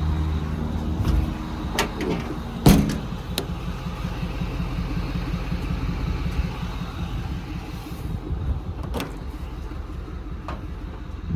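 Ford F-550's diesel engine running steadily, with a few sharp clicks and knocks over it, the loudest about three seconds in.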